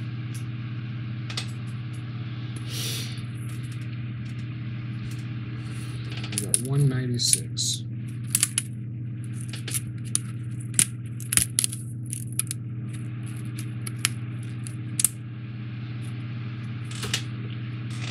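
Scattered sharp little clicks and taps of model-kit pieces being handled and set down on a desk, mostly in the middle stretch, over a steady low hum.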